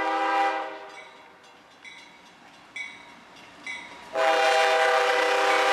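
CSX freight locomotive's air horn sounding a chord: one blast that fades within the first second, then three short faint high rings about a second apart, then the horn again, loud and held, from about four seconds in.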